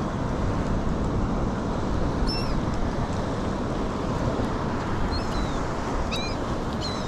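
Steady wind and sea-water noise on the action camera's microphone from a kayak on choppy water, with a few short high seabird calls about two seconds in and three more in the last two seconds.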